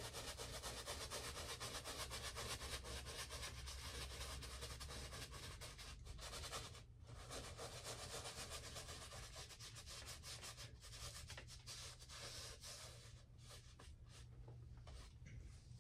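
Paintbrush bristles scrubbing and dabbing paint onto a stretched canvas in rapid short strokes. The strokes break off briefly about six and a half seconds in and grow sparser near the end.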